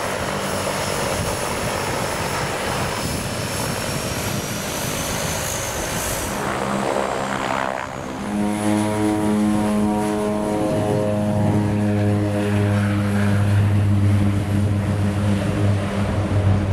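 Twin turboprop engines of a de Havilland Canada DHC-6 Twin Otter: at first a steady engine noise with a high turbine whine. From about halfway, a louder, deep propeller drone at takeoff power as it rolls and lifts off.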